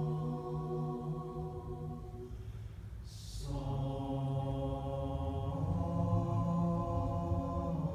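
Mixed high-school chamber choir singing a cappella in long held chords. About three seconds in the chord stops on a short hiss, and a new chord enters that shifts upward about halfway through.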